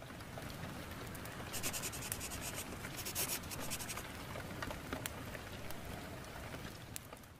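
Wood fire crackling in a cast-iron stove over a steady hiss of rain, with two thick bursts of snaps about two and three seconds in; it fades down near the end.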